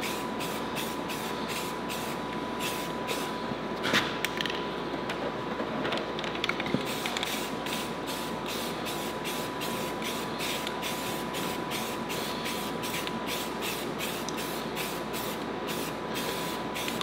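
Aerosol can of spray primer hissing as a light coat is sprayed on, in a quick run of short spurts about three a second.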